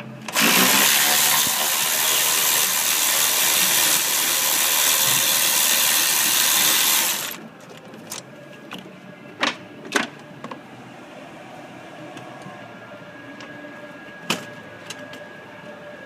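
Milwaukee 12-volt cordless ratchet running on a bolt for about seven seconds, spinning up at the start and cutting off sharply. It is followed by a few sharp clicks a couple of seconds later and again near the end.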